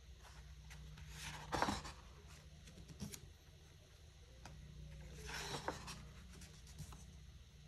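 Pages of a photo book being turned by hand: two papery swishes, about a second and a half in and again a little after five seconds, with a few light paper ticks, over a faint low hum.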